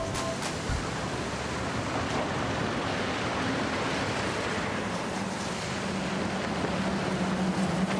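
Steady, even rushing background noise like surf or wind, with a faint low hum joining in the second half.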